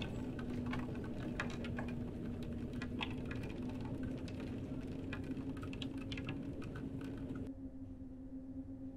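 Sound-effect bed of a steady low hum under scattered, irregular light clicks and ticks. The clicking and hiss drop away about a second and a half before the end, leaving the hum.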